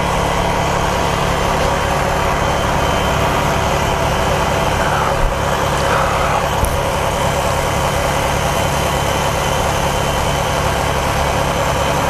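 12-volt electric air pump running steadily, inflating the air beams of a camper-trailer annex toward its 7 psi setting. There are two brief clicks a little past the middle.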